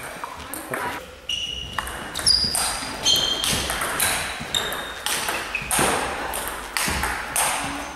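Table tennis rally: the ball clicks off the rackets and bounces on the table in quick succession. Short high squeaks of sports shoes on the hall floor come between the hits.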